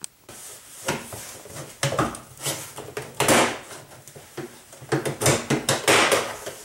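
The plastic driver's door trim panel of a 2005 Chrysler Town & Country being pried and pulled loose from the door: irregular scrapes, creaks and sharp snaps as its plastic snap pins let go.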